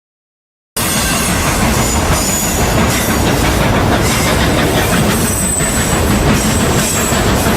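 Train running on rails: a steady, dense rumble and clatter with a faint high squeal above it, starting about a second in after a brief silence.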